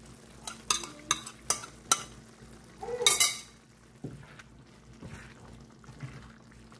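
Ground egusi paste being tipped from a bowl into a pan of tomato stew: four sharp taps as the bowl is knocked and scraped out, a louder scrape about three seconds in, then softer sounds of a wooden spatula working the paste into the simmering stew.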